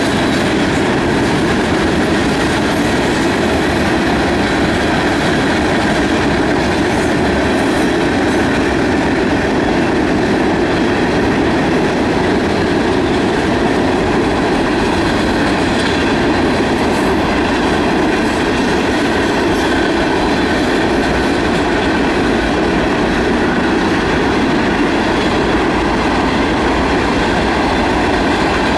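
Freight cars of a long CSX train rolling past over a concrete rail bridge: a steady, loud rumble and clatter of steel wheels on the rails.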